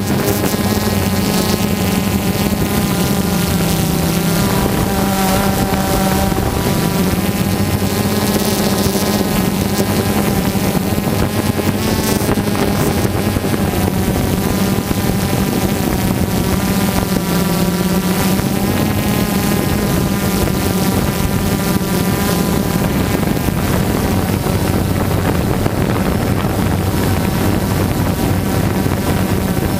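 Quadcopter drone's electric motors and propellers running steadily, a loud drone whose pitch wavers slightly as the aircraft manoeuvres, with some wind noise.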